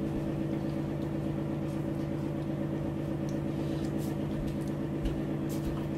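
Steady electrical hum of a running kitchen appliance, with a few faint clicks.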